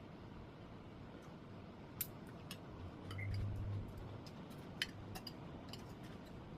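Scattered light clicks and clinks of eating utensils against dishes, the sharpest two about two seconds and almost five seconds in, with a brief low hum a little past the middle.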